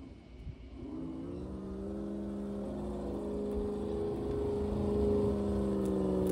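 Huangbo R1001 1/10-scale RC truck's electric motor and gear drive whining as it drives, rising in pitch about a second in and then holding a steady note.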